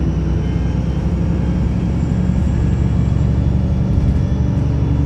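Wright Pulsar single-decker bus engine running, a loud low drone that holds nearly steady in pitch.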